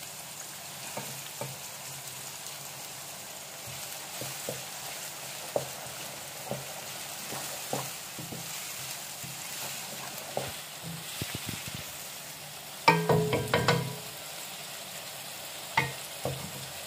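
Chopped onions sizzling steadily in hot oil in a kadai as they fry toward brown, with scattered light knocks of a wooden spatula against the pan. About thirteen seconds in there is a louder, ringing clatter lasting about a second.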